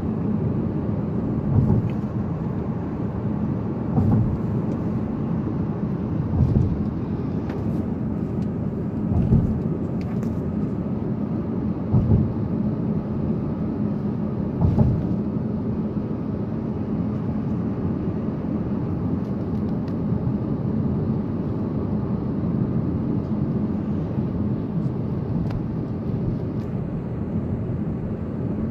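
Steady road and tyre noise heard inside a car's cabin at road speed, with a low thump about every two and a half seconds through the first half as the tyres cross the joints in the bridge deck.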